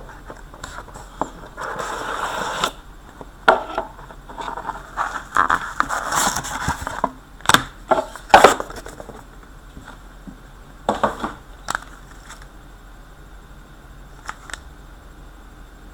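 Hockey card pack being opened by hand: the wrapper crinkles and tears, and the cards scrape and tap as they are handled, in a few rustling stretches with scattered sharp clicks.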